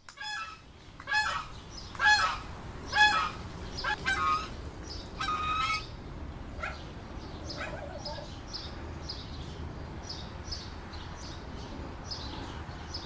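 Geese honking, a run of about seven loud calls in the first six seconds, then a bird chirping repeatedly in short high notes over a steady low hum.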